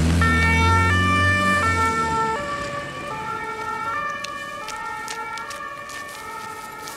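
Two-tone emergency siren of a German police vehicle, switching back and forth between two pitches and fading as it moves away. A vehicle engine runs loudly under it for the first two seconds or so.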